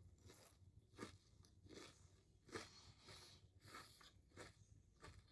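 Faint close-up chewing: a person eating a sandwich, with soft crunches in a steady rhythm of roughly one every second or less.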